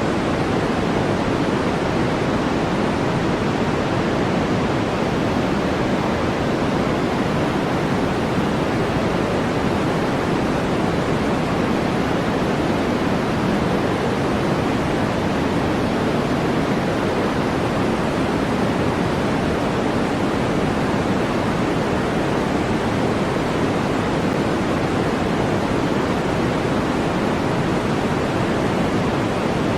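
Generated white-noise sleep track: a constant, unchanging hiss, fuller in the low and middle range than at the top.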